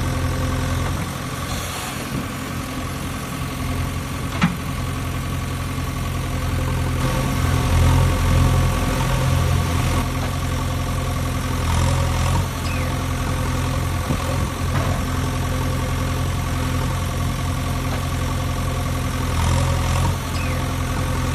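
Engine idling with a steady low hum, a little louder for a couple of seconds in the middle, with one sharp click about four and a half seconds in.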